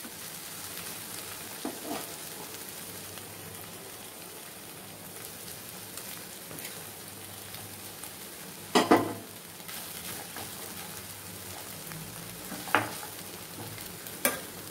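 Rice and potato layers sizzling steadily in a non-stick frying pan on the stove, with a few sharp knocks of utensils against the pan, the loudest about nine seconds in.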